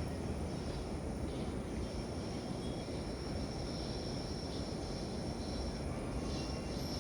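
Steady low rumble from a WAG-7 electric locomotive and its train of coaches, with a faint high-pitched whine above it that drops out briefly now and then.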